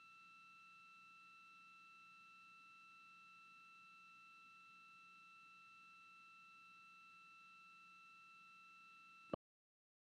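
Near silence apart from a faint, steady high-pitched electronic tone over light hiss. About nine seconds in it ends with a small click and the sound cuts out completely.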